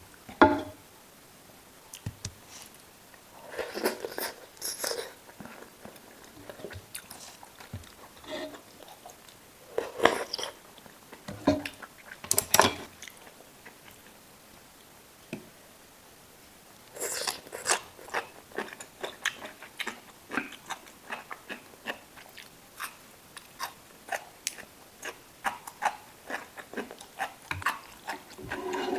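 A person eating: biting and chewing, with many small mouth clicks and a few louder, longer crunchy bites.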